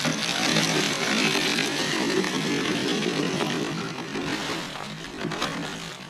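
A Vatera K-5 RC trail truck's small electric motor and gears whirring as it drives over the trail, with scattered clicks and crunches from the tyres on dirt and rocks.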